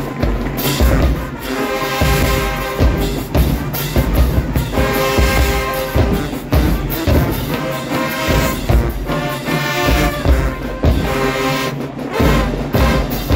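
Marching band playing loudly: trumpets, trombones and sousaphones holding full brass chords over repeated drum hits.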